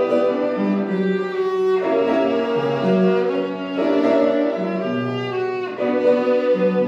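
Violin played with the bow, accompanied by upright piano, in slow held notes that change pitch every second or so.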